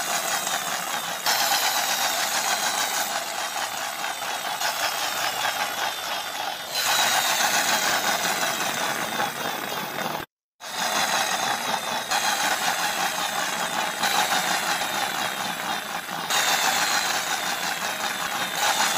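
Small electric motor of a toy police car whirring steadily as its wheels drive through shallow water. The sound breaks off abruptly several times, with a brief silence about ten seconds in.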